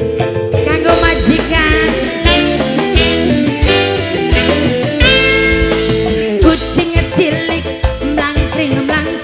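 Live tarling-dangdut band playing: electric guitars and keyboard carrying a wavering lead melody over a steady drum beat.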